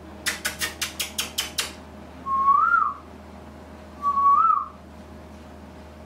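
A quick run of about eight sharp clicks, then two short whistles a second and a half apart, each holding a note before a quick rise and fall.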